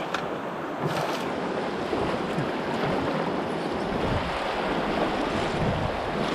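Rushing river water of Class I–II rapids around a canoe, with paddle strokes splashing. It grows louder and deeper from about four seconds in.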